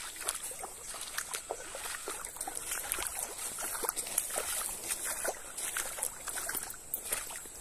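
Footsteps crunching over loose river pebbles and gravel, the stones clicking irregularly underfoot as someone walks along the bank and through the shallow edge. A thin, steady high-pitched tone runs underneath.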